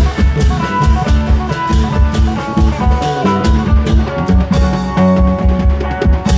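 Isan klong yao band music played loud through an amplified sound system: a steady, driving low drum beat under a plucked-string melody.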